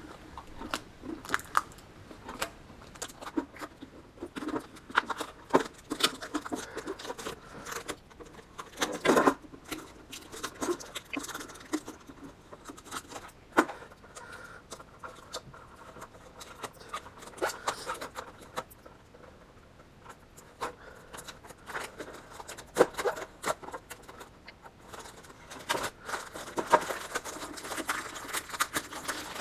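Protective vinyl film being peeled off the aluminium panels of a riveted practice toolbox, heard as irregular crackles, small clicks and scrapes with handling of the metal. There is a quieter pause about two-thirds of the way through.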